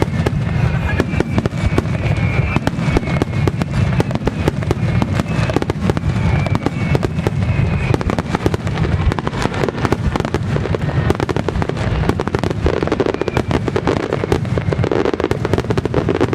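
Starmine fireworks display: a dense, unbroken barrage of shells launching and bursting, many reports a second over a continuous low rumble.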